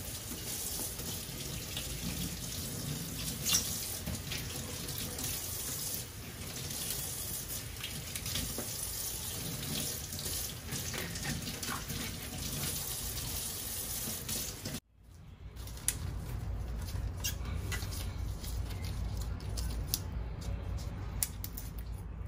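Water running steadily from a tap into a sink, with scattered light clicks and knocks. About fifteen seconds in it cuts out abruptly, then comes back.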